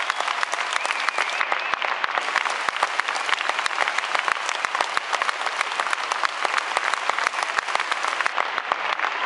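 Audience applauding: dense, continuous clapping with no break.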